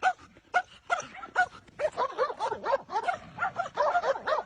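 A dog barking in short, high yaps, a couple a second, which come faster and overlap from about two seconds in.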